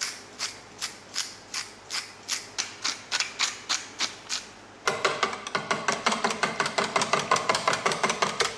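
Pepper mill being ground, a regular ticking about three times a second. About five seconds in, a wire whisk starts beating the beer and tomato liquid in a plastic measuring jug: quick, louder, closely spaced strokes.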